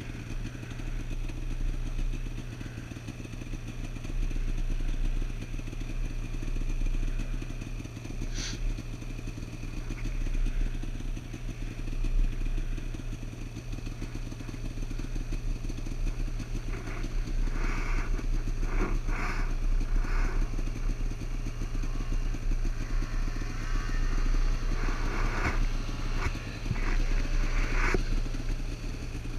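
Snowmobile engine idling steadily. A few short clicks and knocks come in the second half.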